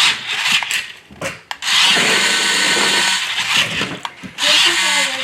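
Small electric motors of a battery-powered remote-control stunt toy car whining as it is driven, with a few short bursts at first, then a long run of about two seconds, a brief break and another run near the end.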